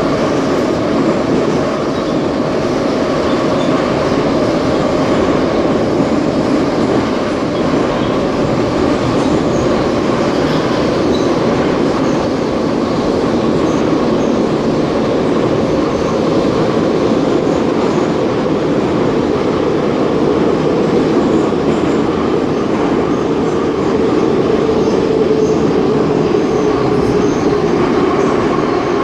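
Soviet Ezh3 metro train running between stations: a steady, loud rumble of wheels and running gear with a humming drone that slowly drops in pitch.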